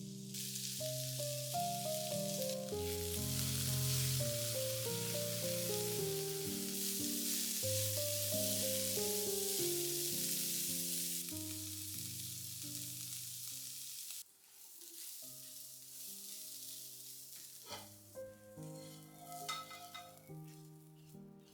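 Food sizzling as it fries in oil in a pan, with some stirring, over soft background music. The sizzle cuts off suddenly about two-thirds of the way through, leaving the music and a few light clicks near the end.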